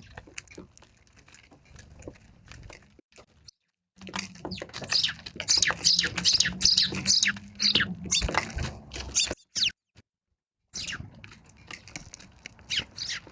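Eurasian tree sparrows chirping: a busy stream of short, high chirps, each sliding downward, thickest in the middle. The sound drops out abruptly twice.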